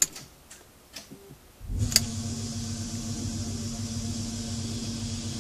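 A few clicks, then about a second and a half in the converted BMW E31 840Ci's electric system comes on with a sharp click, and the electric power steering pump spins up to a steady hum with a hiss above it.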